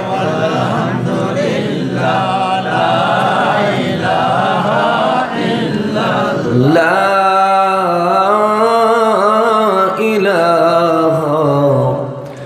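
A man's solo religious chant, sung in long drawn-out melodic phrases with ornamented runs. The longest held phrase starts about six and a half seconds in and falls away just before the end.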